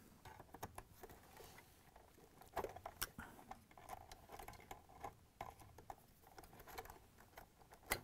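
Faint, scattered clicks and small scrapes of needle-nose pliers gripping and working a wire connector on a refrigerator compressor's inverter control board, with a few sharper clicks about three seconds in.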